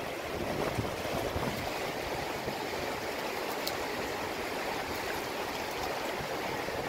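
Shallow river water running steadily over rocks and stones.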